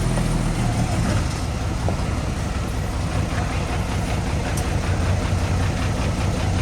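Heavy diesel machinery engine running steadily, mostly low-pitched.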